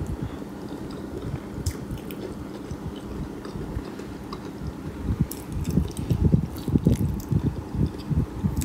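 Close-miked chewing of food, growing louder and wetter from about five seconds in, with crisp clicking mouth sounds.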